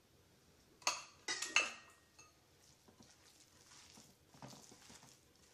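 A small glass bowl clinks sharply against the rim of a large glass mixing bowl three times about a second in, ringing briefly, as chopped onion is tipped out of it. Later comes faint soft squishing of hands mixing the raw chopped chicken stuffing.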